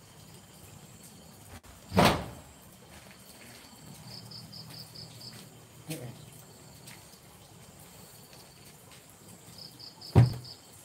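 Crickets chirping in short runs of quick, high pulses. Two loud knocks cut across them, one about two seconds in and a louder one near the end, with a smaller click in between.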